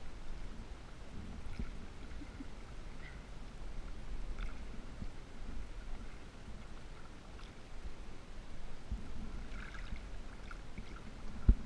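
Lake water lapping and sloshing right at a camera at the surface, with a low rumbling on the microphone and scattered small splashes. One sharp knock near the end.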